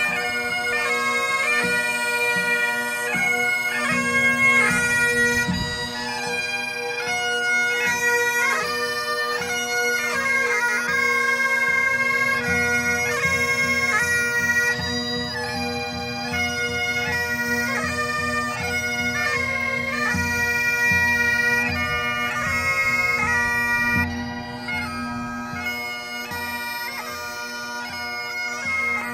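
Several Highland bagpipes playing a tune together over the steady hum of their drones, a little fainter in the last few seconds.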